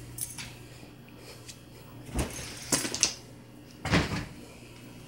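A handful of sharp knocks and thumps between about two and four seconds in, the loudest near the four-second mark, over a faint steady low hum.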